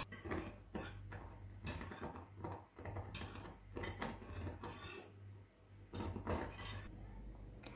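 Metal wire whisk stirring thick peach purée in a saucepan, its wires scraping and tapping against the pan at irregular intervals.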